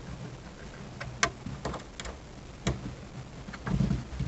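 Irregular light clicks and taps of a plastic convex mirror and its ball-and-socket clamp being handled and fitted by hand, with a sharper click about a second in and a duller knock near the end.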